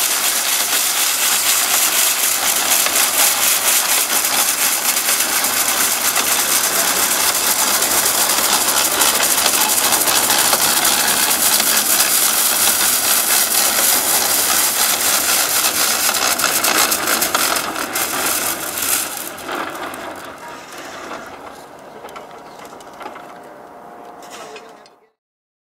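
Electric trolley snow sweeper's rotary broom spinning and brushing snow off the rails: a loud, steady rush with fast fine ticking. It fades over the last several seconds as the sweeper draws away, then cuts off suddenly.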